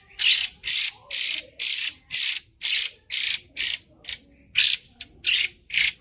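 Female Chinese hwamei (Garrulax canorus) calling loudly: a rapid series of a dozen short, harsh, rasping notes, about two a second.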